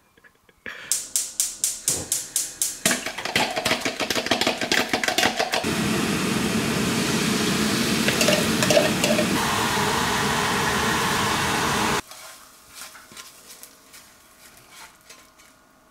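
Eggs being beaten with a fork in a plastic jug, a rapid regular clatter of strokes. A few seconds later, steady sizzling as the beaten egg cooks in a hot frying pan. After a sudden cut near the end, quieter scraping and knocks from a wooden spatula tipping the scrambled eggs from the pan onto a plate.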